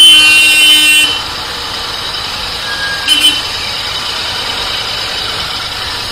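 A vehicle horn blares with one steady pitch for about a second, then a shorter toot about three seconds in, over the steady running of a motorcycle engine and street traffic.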